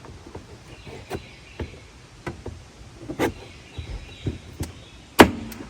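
Irregular clicking and knocking from inside a Jeep door with its panel off, one loud knock about five seconds in: the noise the owner had been worried about in the faulty power door.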